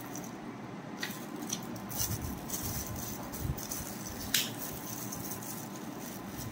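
Handling noise from unpacking a lavalier microphone kit: a small plastic packet crinkling with a few short sharp clicks, the loudest a little over four seconds in.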